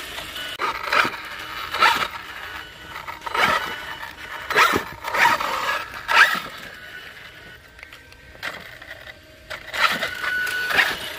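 A series of irregular scrapes and crunches, about seven, with a quieter lull shortly after the middle.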